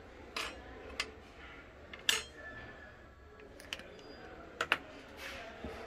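A series of short, sharp clicks and light knocks, some in quick pairs: a screwdriver and the light fitting's mounting bracket being handled and set down on a wooden tabletop.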